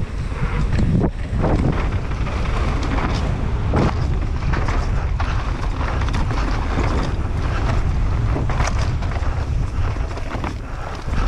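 Wind rushing over the rider's camera microphone on a fast downhill mountain-bike run, with tyres rolling over the trail and repeated knocks and rattles from the bike over rough ground.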